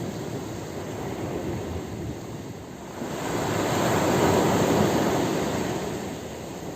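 Ocean surf washing on a beach, with one wave swelling and breaking about three seconds in, loudest just past the middle, then fading.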